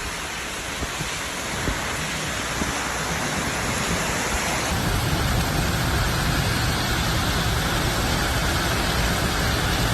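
Heavy rain pouring down, a steady hiss with no distinct drops or strikes, its tone shifting slightly about halfway through.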